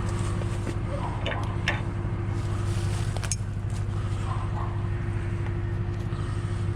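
A heavy vehicle engine idling steadily, with a few faint clicks and knocks over it.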